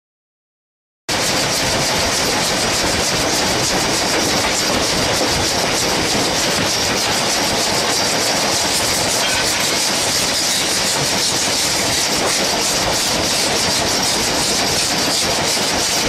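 Steam locomotive and its train running at speed, heard from alongside the carriages: a loud, steady rush of steam hiss and wheel noise that starts abruptly about a second in.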